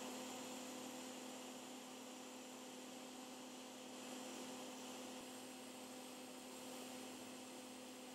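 Hot air rework station blowing steadily while reflowing the solder under a large tantalum capacitor: a faint, constant hum with an even airy hiss.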